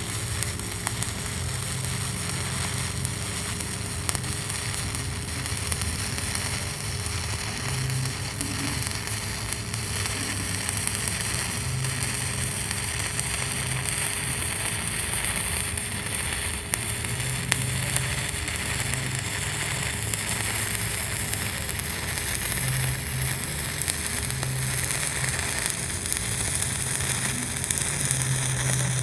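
Stick (SMAW) welding arc from a 309 stainless electrode on carbon steel plate, crackling steadily without a break as a fill pass is run at about 80 amps.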